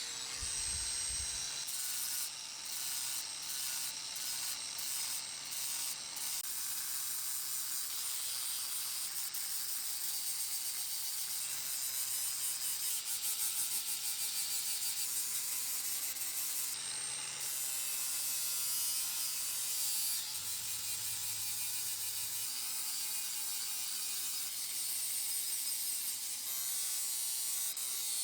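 Abrasive tool work on the hatchet: a steady, high, raspy hiss with a fine fast rattle, like a small sander or grinder working the surface.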